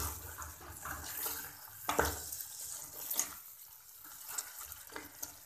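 Curry masala sizzling as it fries in a steel pan, stirred and scraped by a steel spoon, with a few sharper scrapes and clinks of the spoon against the pan.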